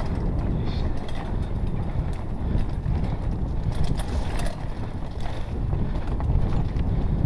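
Mountain bike rolling fast over a rocky dirt trail, wind rumbling on the microphone, with irregular clicks and rattles from the bike over the bumps.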